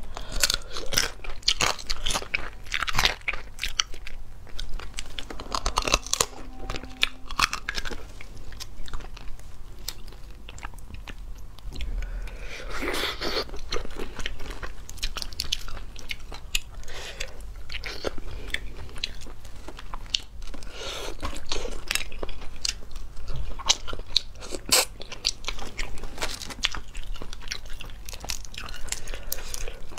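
Close-up eating sounds of lobster in spicy sauce: crunchy biting and chewing, with many sharp clicks of shell being bitten and cracked.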